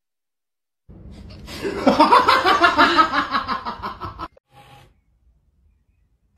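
A person laughing: a fast run of ha-ha pulses that starts about a second in, grows loud, and cuts off suddenly after about three seconds.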